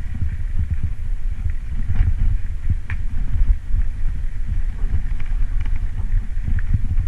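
Wind buffeting the microphone while a bicycle rolls fast down a rough gravel road, rumbling and jolting over the stones, with a few sharp clicks about two and three seconds in.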